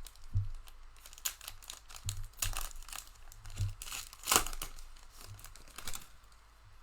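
Plastic foil wrapper of a trading-card pack crinkling and tearing as it is ripped open and handled, in irregular crackles with a few light knocks, loudest about four seconds in.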